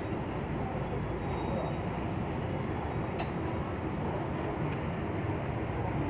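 Steady cabin noise of a Taiwan Railway EMU900 commuter train standing at a station: the even hum of its onboard equipment and air conditioning, with one short click about three seconds in.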